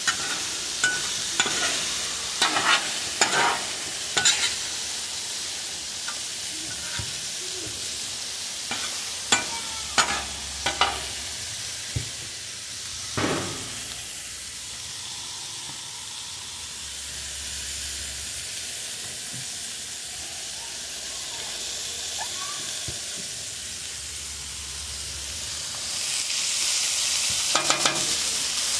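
Burgers and potato wedges sizzling on a Blackstone flat-top griddle, with a metal spatula scraping and clacking on the steel several times in the first half. Near the end the sizzle grows louder as diced onions go onto the hot griddle.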